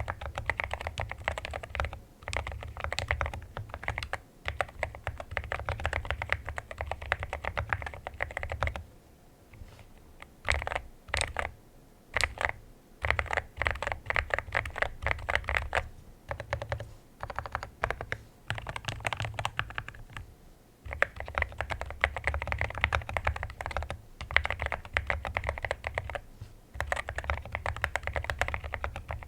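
Mechanical keyboard fitted with Akko Rosewood switches being typed on in fast runs of keystrokes. The typing breaks off about nine seconds in for a few slower single key presses, then resumes, with another short pause about twenty seconds in.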